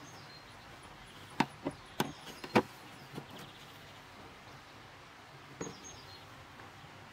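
Sharp plastic clicks and knocks from the Audi A8 D3's air filter housing lid being handled and pressed into place: four close together about a second and a half in, and a weaker one later. Faint bird chirps in the background.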